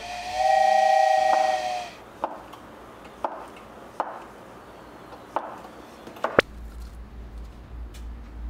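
A Cuckoo electric rice cooker gives a steady electronic beep lasting about a second and a half. Then a kitchen knife slices through a block of tofu, tapping the wooden cutting board about six times, roughly once a second.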